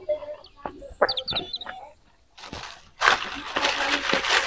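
A few light spoon clinks against bowls and brief bird chirps, then, about three seconds in, a loud crinkling of a plastic bag being handled that runs on to the end.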